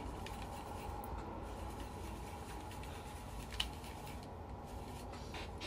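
Faint scratchy handling of a makeup brush and an open powder compact, with one small click about three and a half seconds in, over a low steady hum.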